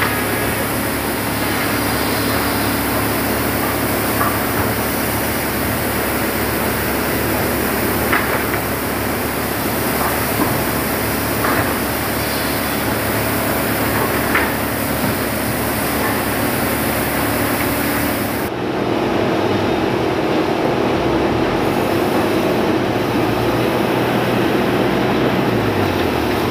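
Forklift engine running steadily, with a few short knocks of wooden blocks being handled. A little over halfway through, the sound changes abruptly, and near the end the engine's pitch falls.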